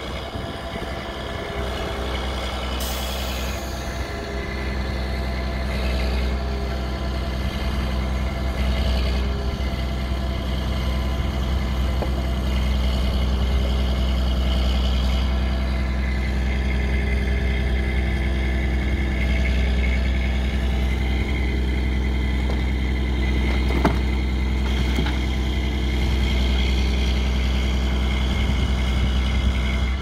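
Logging truck's diesel engine running steadily to power the hydraulics of its truck-mounted log loader while birch logs are picked off the trailer. The engine gets somewhat louder after the first several seconds, and there is a single knock late on.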